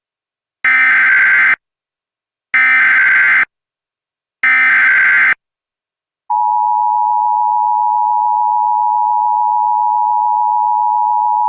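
Emergency Alert System SAME header: three identical screeching digital data bursts of about a second each, then about six seconds in the steady two-tone EAS attention signal begins, announcing an emergency alert.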